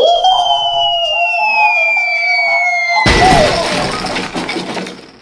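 Cartoon transition sound effects: a long falling whistle over a held wavering tone. About three seconds in they give way to a sudden loud crash, which dies away over about two seconds.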